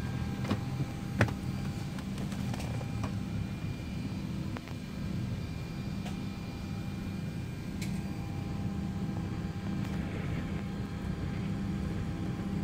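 Steady low hum inside a parked Boeing 787's cabin, with a few faint steady whining tones above it and scattered light clicks and knocks, the sharpest about a second in.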